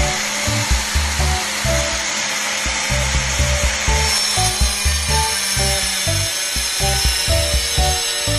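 Electric wet tile saw running and cutting, a steady loud hiss with a motor hum, under background music with a regular beat.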